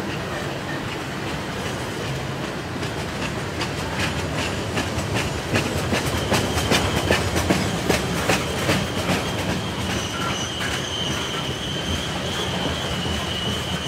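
Tank cars of a long freight train rolling past with a steady rumble and a rapid clickety-clack of wheels over rail joints. A high, steady wheel squeal comes in about halfway and grows louder near the end.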